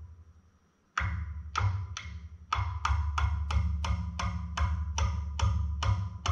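Background music with a steady, clicking woodblock-like beat, about three a second, over a low sustained bass. It cuts out briefly at the start and comes back suddenly about a second in.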